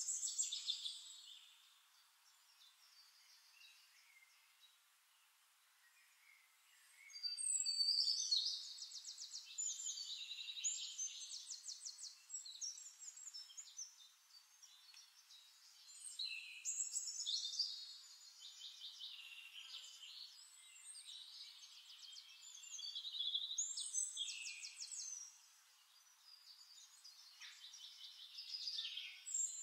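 Birds chirping, in bursts of rapid trills a few seconds long with lulls between, thin and high-pitched with nothing low.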